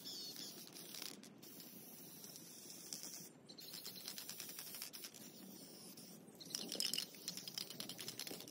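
Faint hiss of an aerosol can of Rust-Oleum gloss protective enamel spray paint. It grows louder about two-thirds of the way in, as the spray is applied to the table's pedestal base.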